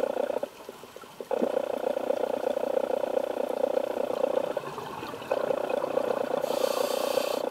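Scuba diver breathing through a regulator, heard underwater. Long buzzing, bubbling exhalations are broken by two short pauses, and a hiss of inhalation comes near the end.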